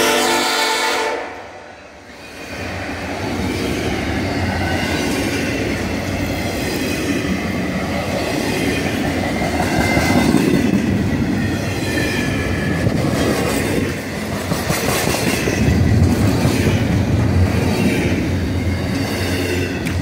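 A CSX freight locomotive's horn chord that cuts off about a second in, then double-stack container well cars rolling past close by with a steady rumble and wheel clatter on the rails.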